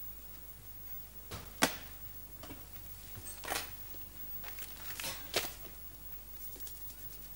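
Quiet room with a handful of sharp clicks and knocks from household handling, the loudest about a second and a half in, with soft rustling and a few faint ticks near the end.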